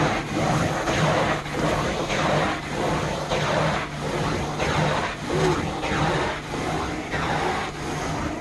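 Carpet-cleaning extraction wand worked back and forth over carpet during hot-water extraction, its suction noise swelling and easing in a steady rhythm about every three-quarters of a second over the constant hum of the cleaning machine.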